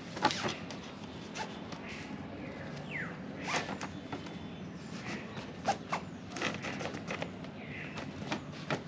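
Tent being set up by hand: scattered rustling and clicking of tent fabric and fittings, with a few short zip-like sweeps.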